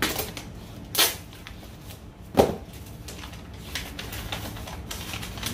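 Packaged metal spoon lures being handled and set down on a table: a run of small clicks and clacks, with a sharp rustle about a second in and a louder knock a little before the middle.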